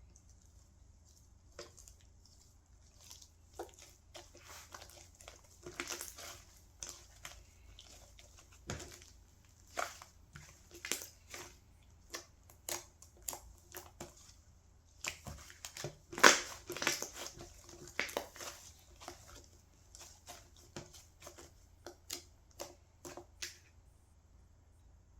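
Hands squishing and pressing wood slime, giving irregular crackling clicks and pops, densest and loudest just past the middle.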